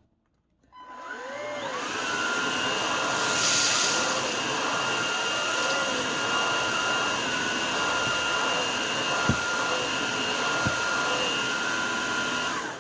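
Xiaomi Shunzao Z11 cordless stick vacuum switched on about a second in: the motor spins up with a rising whine, then runs steadily with a high-pitched whine over the rush of air. A short surge of hiss comes a few seconds in, and it shuts off right at the end.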